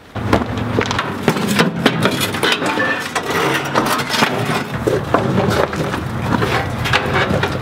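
Wooden clattering and knocking of a mahogany chicken crib being picked up and carried, with many rapid sharp clicks and bumps.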